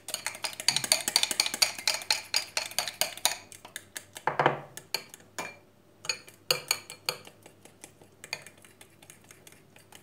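Metal spoon stirring and clinking fast against a ceramic bowl, mixing a thick batter of yeast, water and rice flour as it starts to thicken. The rapid clinks thin out after a scrape about halfway through, and only scattered strokes follow.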